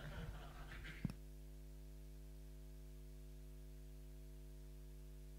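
Faint steady electrical mains hum in the sound system, with a single click about a second in.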